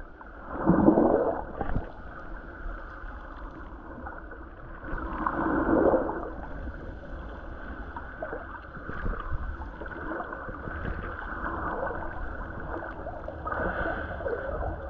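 Water heard underwater: muffled gurgling and sloshing, with louder surges about a second in and again around six seconds.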